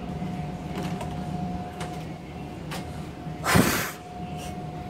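A short, loud puff of breath blown close to the phone's microphone about three and a half seconds in, over a steady hum with a faint high whine and a few light knocks from the phone being handled.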